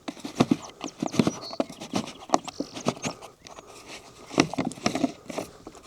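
Irregular clicks and knocks of a sprayer tank cap and its hose fitting being handled and fitted together.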